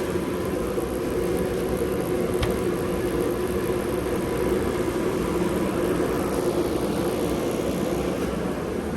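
Steady machine hum, like a fan or motor running, with a faint click about two and a half seconds in.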